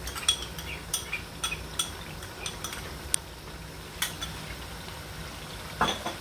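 A metal spoon scraping and tapping yogurt out of a bowl into a pot of simmering curry: a string of sharp clinks and taps, with a louder knock near the end. The curry sizzles faintly underneath.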